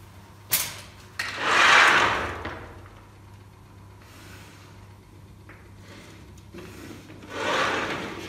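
A wooden straightedge knocks twice against a chalkboard, followed by a scraping rub on the board about a second long. After a few faint ticks, a second scraping rub comes near the end, as chalk lines are marked along the straightedge.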